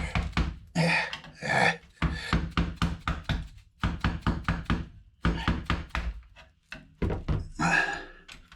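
A sharpened hand tool scraping and prying at a chip on a motherboard: a quick run of clicks and knocks, with a couple of short scrapes.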